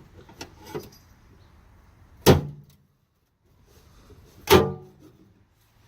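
A cut flap of a car's sheet-steel rear floor pan being pried and bent back with a screwdriver: a few light clicks, then two loud metallic bangs about two seconds apart, each with a brief ring.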